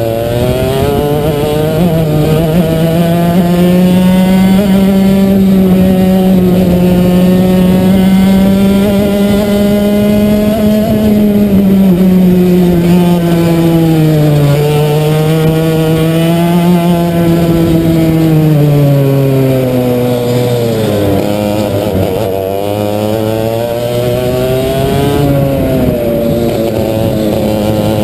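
Two-stroke racing kart engine at race pace, heard from on board the kart. The pitch holds high for about ten seconds, then falls and climbs again several times as the kart brakes into corners and accelerates out of them.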